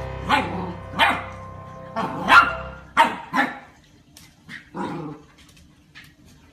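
Golden retriever puppy barking: a run of about seven short barks over the first five seconds, the loudest about two seconds in.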